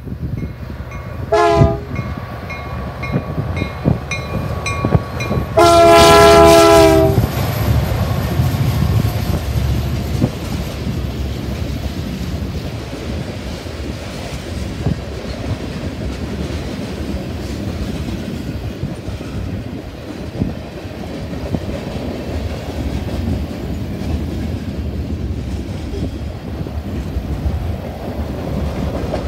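Freight locomotive air horn on CN EMD SD75I diesels: a short blast about a second and a half in, then a louder, longer chord blast a few seconds later. This is followed by the steady rumble and clatter of a long string of freight cars rolling past.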